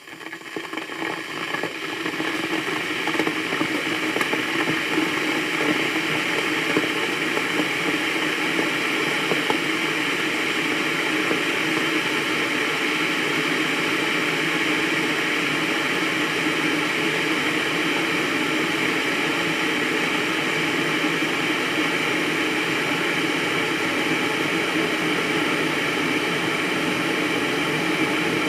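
Electric kettle heating water toward the boil: a steady hissing, rumbling rush that swells up over the first couple of seconds, then holds level.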